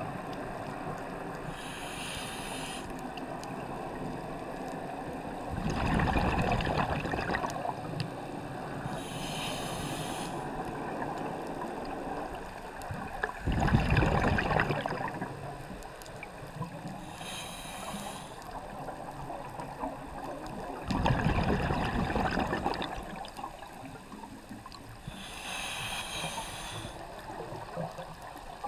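Scuba diver breathing through a regulator underwater: a hiss on each inhalation, then a rush of exhaled bubbles a few seconds later. The cycle repeats roughly every eight seconds.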